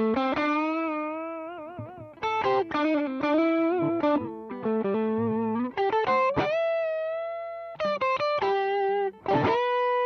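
Electric guitar played through a Demonfx Breaker Drive, a Marshall Bluesbreaker-style overdrive pedal, giving an overdriven tone. It plays a single-note lead line with vibrato on sustained notes, string bends and a long held note.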